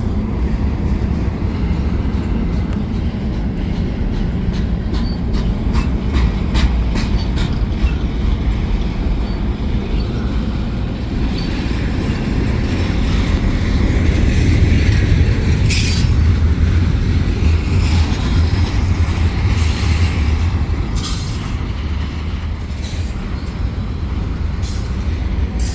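Double-stack container freight train rolling past at close range: a steady low rumble of wheels on rail, a run of sharp wheel clicks, then high-pitched wheel squeal from about ten seconds in.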